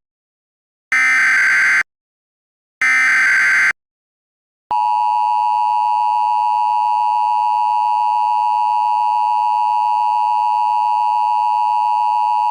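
Emergency Alert System header: two short bursts of screeching digital data tones (the SAME header), then about a second later the steady EAS attention tone starts and holds.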